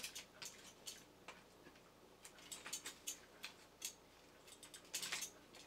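Faint, irregular light clicks and ticks from hands handling wires and small parts inside a tin toy robot while its circuit board is fastened on with twisted wires. A small flurry of clicks comes near the end.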